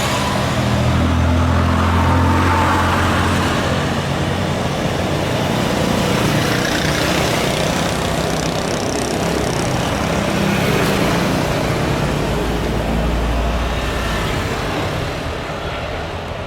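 Jet airliner engines, a loud steady rush with a deep low rumble, easing off near the end as the aircraft passes on landing.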